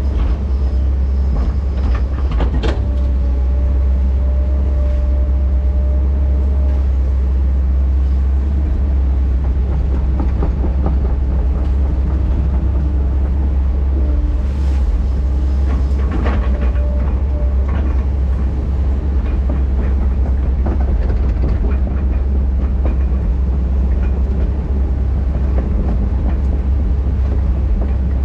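Heavy tracked diesel machine working, its engine running with a steady low drone, with metal clanks and knocks from the machine about two and a half seconds in and again about sixteen seconds in. Each clank is followed by a steady higher tone lasting a few seconds.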